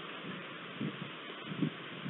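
Steady hiss of storm rain, with a few soft low thumps about a second and a second and a half in.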